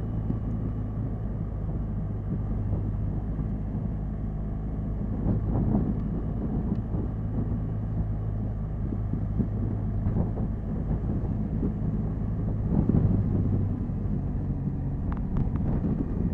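Motorcycle engine running at a steady cruise, with wind rumbling on the microphone.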